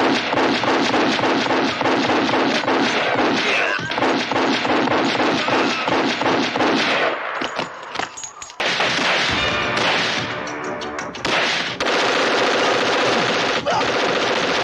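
Film shootout gunfire: pistols fired in rapid succession, several shots a second, with a brief lull about eight seconds in before the shooting resumes.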